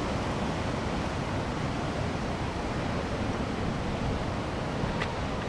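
Ocean surf: waves breaking and white water washing in, a steady rushing noise, with a faint click near the end.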